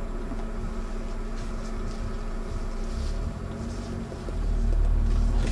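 Car engine idling steadily, with a louder low rumble coming in about four seconds in.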